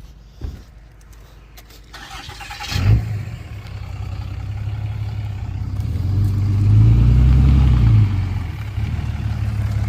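Dodge Ram 2500's Cummins turbo-diesel inline-six cranked over by the starter for about a second, catching about three seconds in, then idling; it revs up briefly a few seconds later and settles back to idle.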